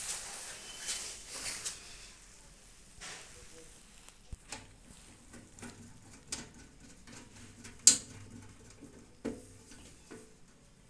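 Scattered clicks, taps and scraping of parts being handled and fitted into a microwave oven's metal body, with the sharpest click about eight seconds in.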